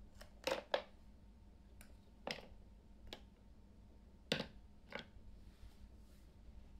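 Hard plastic toy tea-set pieces clicking and tapping against each other and the tabletop as they are handled and set down: about eight short, sharp clicks at uneven intervals, the loudest about half a second in and again past four seconds.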